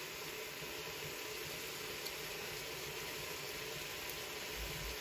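Steady low hiss, even throughout, with a faint hum underneath.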